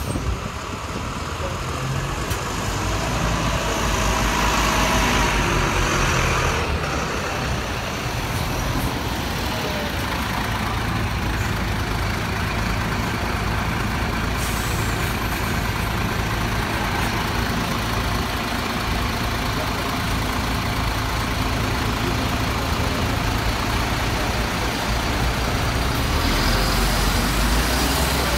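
Buses and other road traffic passing on a street, engines running steadily. The sound swells as vehicles pass, about four seconds in and again near the end.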